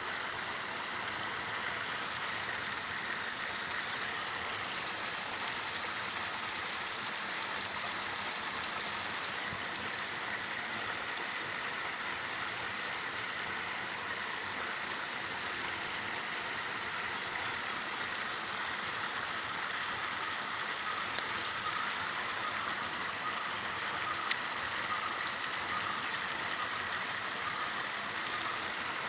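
Steady hiss of water in a small canal, with water splashing in and, in this rainy scene, possibly rain on the surface. A couple of faint clicks about two-thirds of the way through.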